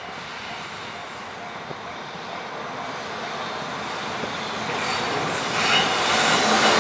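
EF66 electric locomotive and its freight train approaching a level crossing, its rumble growing steadily louder and swelling sharply in the last two seconds. Early on, a crossing warning bell rings faintly about twice a second.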